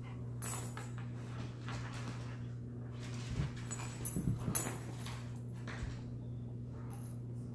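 Siberian husky making a few short, soft vocal sounds about three to four and a half seconds in, with light clicks and knocks in between, over a steady low hum.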